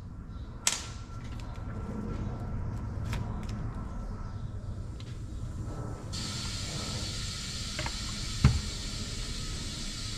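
Clicks and knocks of engine parts and tools being handled at a workbench, with a sharp click about a second in and a heavier thump near the end. A steady hiss comes on abruptly about six seconds in and keeps going.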